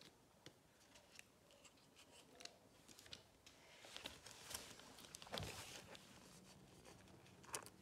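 Quiet crinkles and clicks of a Panini sticker's backing paper being peeled off by hand, with a louder paper rustle a little past the middle as the sticker is pressed onto the album page.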